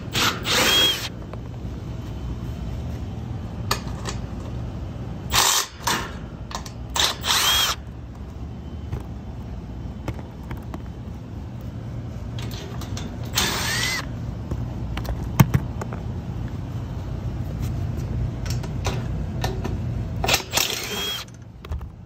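Cordless impact driver with a nut-driver bit running the screws on a package unit's sheet-metal access panel. It goes in about five short bursts of half a second to a second, some opening with a brief rising whine as the motor spins up.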